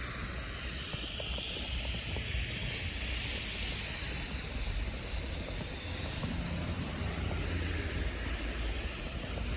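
Outdoor ambience in a snowstorm: a low, uneven rumble of wind on the microphone under a steady hiss.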